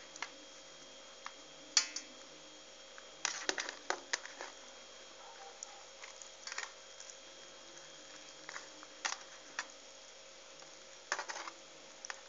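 Hands arranging soft cabbage leaves in a metal pot: scattered short crackles and rustles, busiest about three to four seconds in and again near the end, over a faint steady hum.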